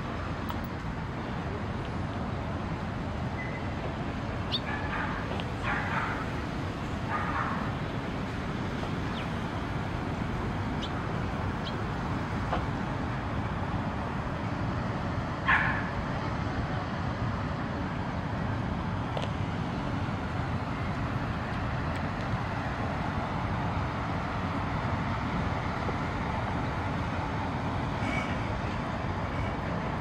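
Outdoor ambience: a steady low rumble of distant traffic, with faint distant voices now and then and one short sharp sound about halfway through.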